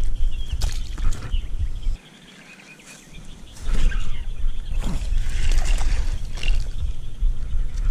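Wind buffeting the camera microphone as a low rumble. It drops away for about a second and a half around two seconds in, then returns. Scattered clicks and knocks come from handling the fishing rod and spinning reel.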